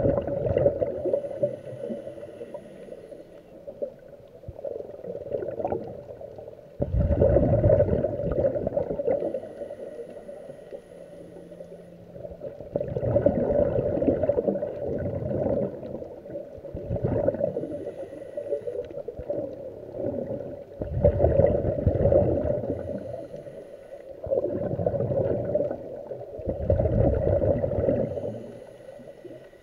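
A scuba regulator's breathing heard underwater through the camera housing. The exhaled bubbles make a bubbling rumble every few seconds, with quieter inhaling between.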